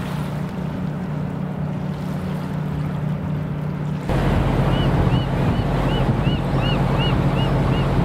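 Steady low drone of a boat engine over water and wind noise. About four seconds in the sound turns louder and a bird starts a run of short, high, arching calls, about three a second.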